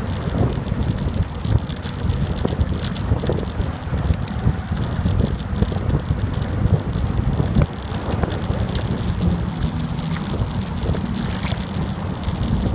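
Wind buffeting the microphone of a moving bicycle, with tyre noise and light rattling from the bike. A low steady hum joins in for the last few seconds.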